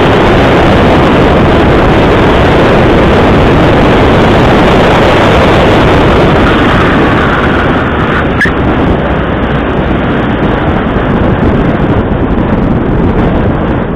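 Loud, steady rush of wind and road noise on a microphone mounted on the outside of a 2009 Volkswagen GTI driven hard through an autocross course, with the car's engine running underneath. The rush eases somewhat from about seven seconds in, and there is a single sharp click about a second later.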